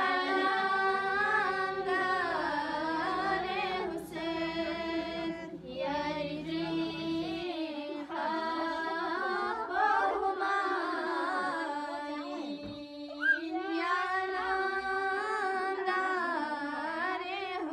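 Women singing a Balti qasida, a slow devotional chant with long drawn-out notes and short breaks between phrases.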